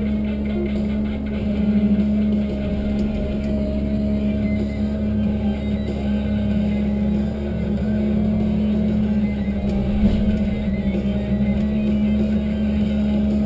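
Tigercat 1075B forwarder's diesel engine and hydraulics running steadily under crane work, a constant drone heard inside the cab, with a single knock about ten seconds in.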